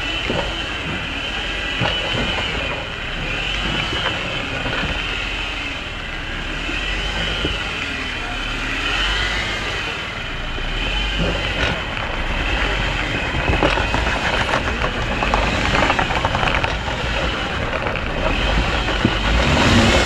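Jeep Wrangler engine running steadily under load as it crawls up a rock ledge, with tires grinding on rock. Short knocks and scrapes come more often in the second half.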